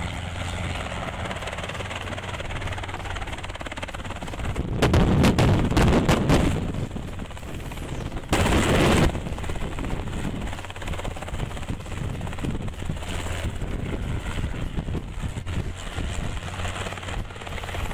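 Robinson R22 helicopter flying low past, its rotor and engine running steadily. Rotor downwash hits the microphone in loud, rapid buffeting about five seconds in, and again briefly around eight seconds.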